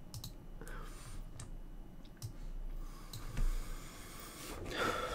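A few faint, scattered clicks, with a short breath near the end.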